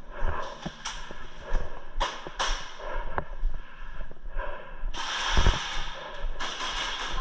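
Airsoft gunfire in an indoor arena: scattered sharp snaps and cracks, with a louder, longer burst of noise about five seconds in and another shortly before the end.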